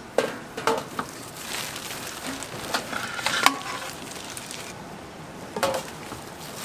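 Metal cooking utensils clinking and scraping against pans and trays, a handful of sharp clinks over a steady frying hiss.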